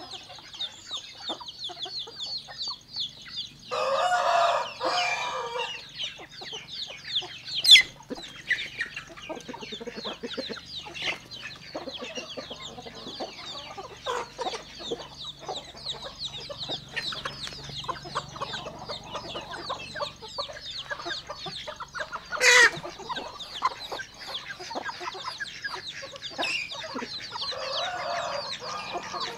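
Chickens clucking and calling without a break, with a rooster crowing about four seconds in and again faintly near the end. Two short, sharp, loud sounds stand out, one early on and one past the middle.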